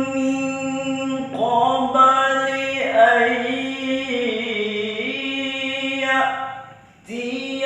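A man reciting Quran verses in a melodic, drawn-out chant with no accompaniment, holding long notes and sliding between pitches. He pauses briefly for breath near the end, then carries on.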